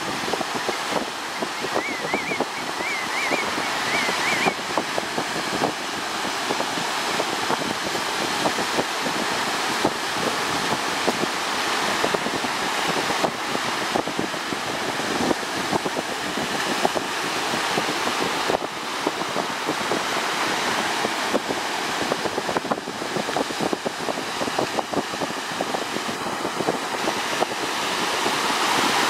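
Small surf breaking and washing in the shore break, a steady rushing wash of water, with wind buffeting the microphone.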